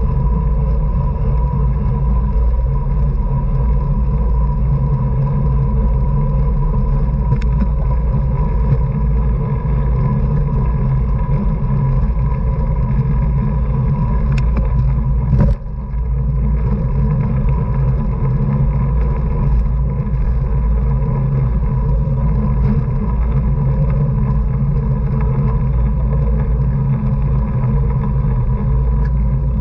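Wind rushing over a racing cyclist's camera microphone at speed, a loud steady rumble with a thin steady whine above it. A single brief knock about fifteen seconds in, with the noise dipping for a moment after it.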